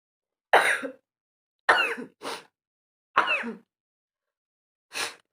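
A woman sneezing several times in quick succession: four sharp sneezes about a second apart, with a smaller catch of breath right after the second.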